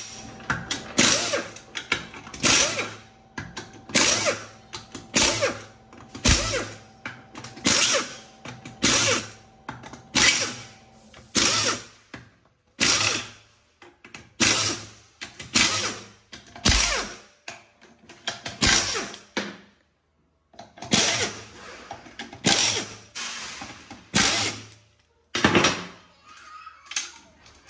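Bellhousing bolts of a manual gearbox being undone with a wrench: a long run of short metallic tool strokes, roughly one every 0.7 s, with a brief pause about two-thirds of the way through.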